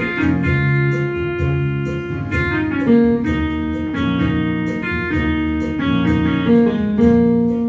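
Instrumental introduction of a Mandarin pop song: sustained keyboard chords over a steady beat, with no singing.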